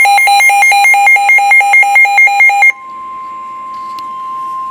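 Weather radio's built-in alert alarm beeping loudly and rapidly, about six beeps a second. After about two and a half seconds it switches to the broadcast's steady 1050 Hz NOAA Weather Radio warning alarm tone, which signals that a warning message follows.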